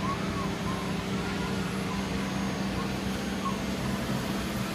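A small CNC engraving machine running, its 2.2 kW water-cooled spindle giving a steady hum. Short whining pitch glides, typical of stepper motors moving the axes, come and go during the first few seconds.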